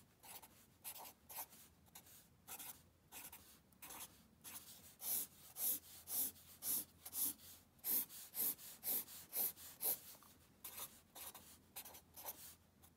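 Pen scratching on notebook paper, drawing the ruled lines of a grid in a series of short strokes, packed closest together in the middle stretch.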